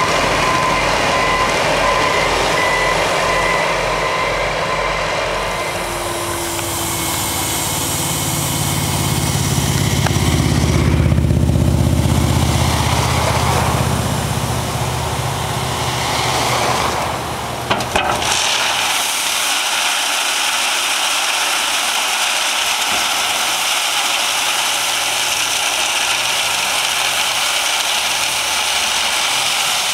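Heavy diesel road equipment running, with a backup alarm beeping for the first few seconds and then a dump truck's diesel engine growing louder. About eighteen seconds in, a short clank gives way to a steady hissing rush of 1¼-inch crushed gravel pouring out of the raised dump box as the truck tail-spreads it onto the road.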